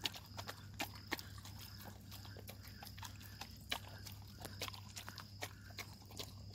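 Two stray dogs eating rice off a paper plate: faint, irregular smacking and clicking of chewing and licking, over a steady low hum.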